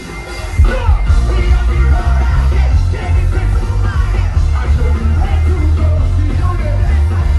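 Loud music with a heavy, steady bass beat and a singing voice over it.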